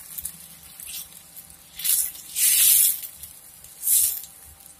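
Spatula stirring thin vegetable soup in a pan: three short, hissy, watery swishes, the longest and loudest about halfway through.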